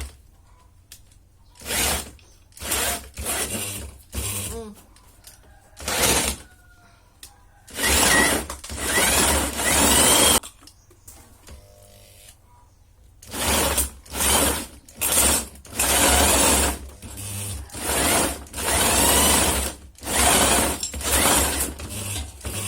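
Electric drill driving a crab grinder, switched on and off in a series of short bursts, some under a second and some a couple of seconds long, its pitch rising as the motor spins up.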